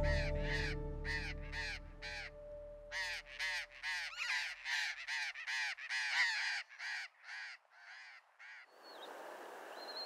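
A colony of burrowing parrots calling: harsh, grating screeches, about two a second, growing fainter toward the end. Soft music fades out over the first couple of seconds, and a faint steady hiss comes in near the end.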